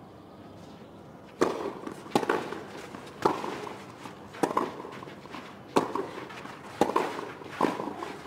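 Tennis ball struck back and forth with rackets in a doubles rally: sharp string hits starting about a second and a half in, seven in all, roughly one a second.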